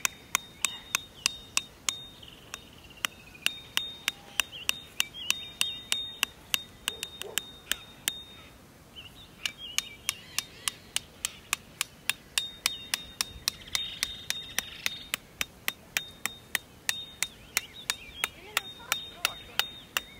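A metal-headed camping hammer driving a steel tent peg into gravelly ground, striking with short metallic clinks at a steady pace of about three a second, with a brief pause about halfway through.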